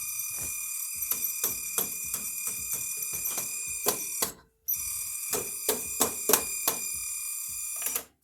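Rotel RD-945AX cassette deck making a loud screaming noise: a steady high-pitched whine with many overtones, under scattered clicks and knocks. It cuts out briefly about four and a half seconds in and stops just before the end.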